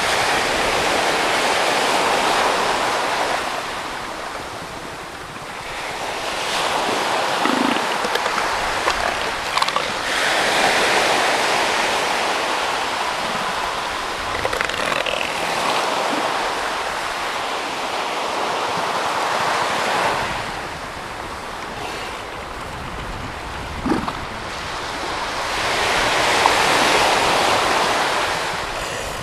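Ocean surf washing on the beach, swelling and fading every several seconds, with a few short low calls from sparring male northern elephant seals. One call comes about a quarter of the way in and a louder one late on.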